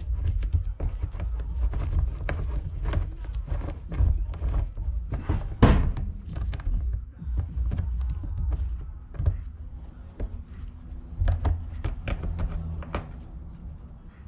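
Irregular clicks and knocks of hand tools on metal as bolts are taken out of an ATV, with one louder knock a little before halfway through.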